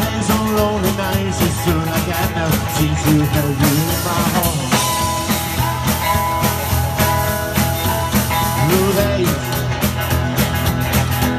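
Live band playing an instrumental break: drum kit, upright bass, acoustic and electric guitars and harmonica, with bending notes over a steady beat.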